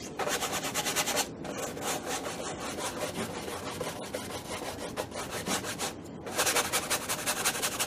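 A wide bristle brush scrubbing back and forth over a stretched painting canvas in quick strokes, spreading a thin film of oil medium over the surface before glazing. The scrubbing is louder in the first second or so and again near the end.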